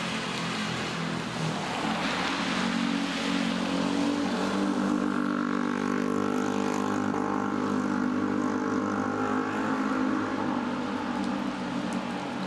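A motor vehicle's engine running close by in traffic, a steady pitched hum that swells through the middle and fades near the end, over the hiss of rain and wet road.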